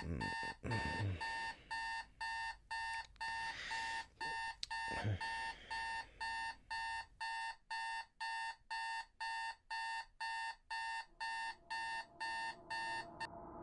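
Electronic alarm beeping steadily, about two beeps a second, then stopping shortly before the end. A few dull knocks from handling come in the first five seconds.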